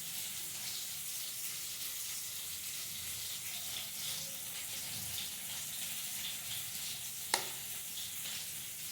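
Diced potatoes frying in oil in a pan, a steady sizzle, with one sharp click about seven seconds in.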